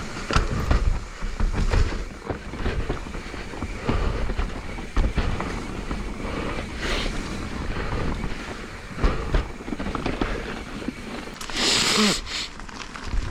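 Mountain bike clattering and rattling over roots and rough ground on a downhill trail, many short knocks over a steady low rumble of wind buffeting the microphone, with a brief burst of hiss near the end.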